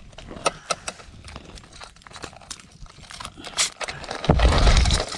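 Small wood cooking fire crackling under a pot, with scattered sharp pops. Near the end comes a louder rushing noise with a low rumble.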